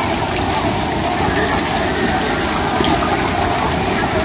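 Ornamental fountain's ring of arcing water jets splashing steadily into its basin.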